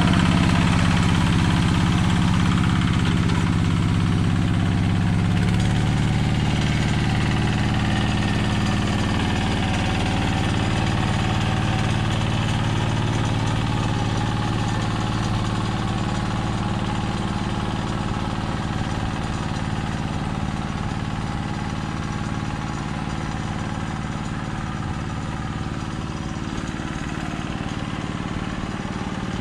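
Yanmar two-wheel hand tractor's single-cylinder diesel engine running steadily under load as it plows a flooded rice paddy. The engine grows slowly fainter as the tractor moves away across the field.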